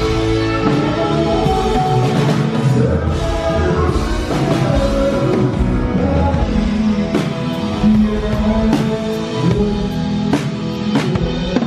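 Background music with a rock band: drums, guitar and a singing voice.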